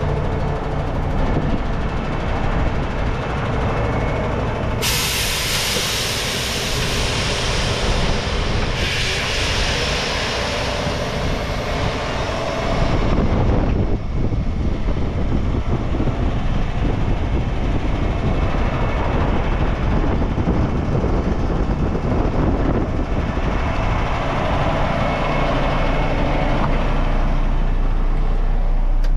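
Diesel engine of a 2011 International WorkStar 7600 dump truck idling steadily. About five seconds in, air hisses out in two long blasts of about three and five seconds, each starting and stopping sharply.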